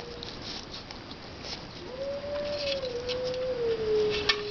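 Opossum eating from a plastic tray: quick wet chewing and lip-smacking clicks, thickest in the second half with a sharp one near the end. Under it a steady, slightly wavering tone drops out just after the start and returns about two seconds in.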